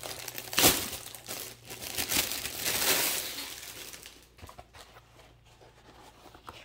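Clear plastic bag crinkling as it is handled and pulled off a canvas tote bag. It is loudest in the first three seconds, with a sharp crackle a little under a second in, then fades to light rustles and taps.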